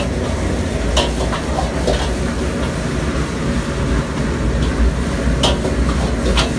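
High-powered wok burner running with a steady low rumble while fried rice sizzles and is stirred in a wok. A metal ladle clanks sharply against the wok a few times, and the rice is tossed near the end.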